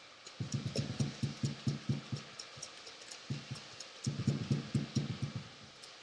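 Liquid sloshing and thumping inside a Slushy Magic shaker cup shaken hard by hand, about five strokes a second in two runs with a short break about three seconds in. The slosh means the drink is still liquid and has not yet turned to slush.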